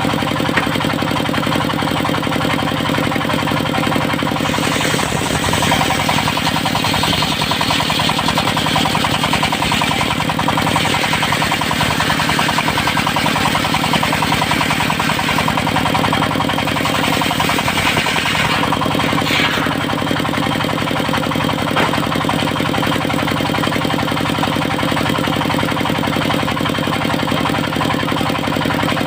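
Engine of a mobile circular sawmill running steadily, with a long stretch from about five seconds in to about nineteen seconds where a high hiss rises over it as the circular blade cuts through old teak, ending in a short sweeping whine.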